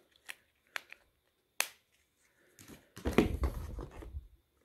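Small plastic clicks of a Motorola Razr flip phone's battery cover being fitted back on, with one sharp snap about a second and a half in. Then a short stretch of rustling and knocking as the next phone is picked up out of a cardboard box.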